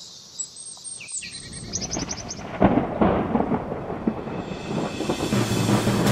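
Birds chirping for the first couple of seconds, then a sudden crack of thunder about two and a half seconds in that rolls on as a loud, continuing storm rumble.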